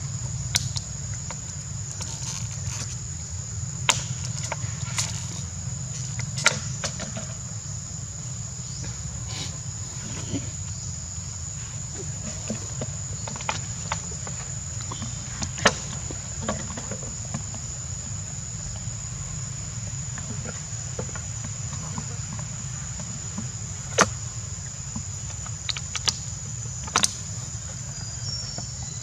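Insects droning in one steady high-pitched tone, over a low steady rumble, with a dozen scattered sharp clicks and taps, the loudest about 16 and 24 seconds in.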